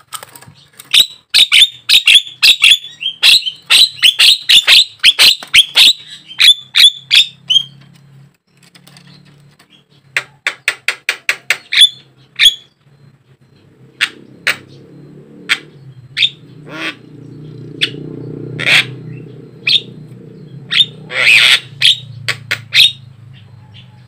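Javan myna (jalak kebo) calling: a fast run of short, sharp chattering notes for about seven seconds, a shorter run after a pause, then single calls spaced a second or so apart. A low steady hum sits under the second half.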